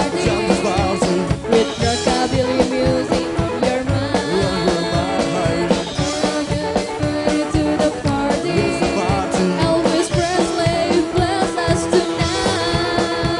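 Live band playing a song: electric guitar, bass and drum kit with a steady beat.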